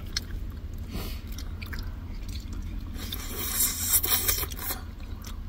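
Scraping and rustling handling noises with scattered light clicks over a steady low hum, the rustling loudest from about three to four and a half seconds in.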